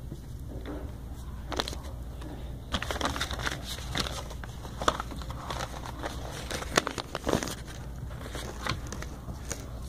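Handling noise from a phone's microphone rubbing against clothing: irregular rustling and crackling with sharp clicks, busiest from about a second and a half in until near the end.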